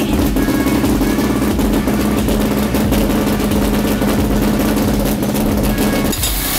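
A race car engine idling loudly and steadily with a rapid pulsing beat. It cuts off abruptly about six seconds in.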